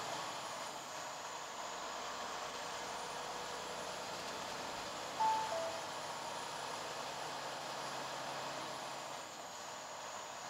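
Steady road and engine noise inside a semi-truck cab cruising on the highway. About five seconds in, a short two-note electronic chime sounds, the second note lower.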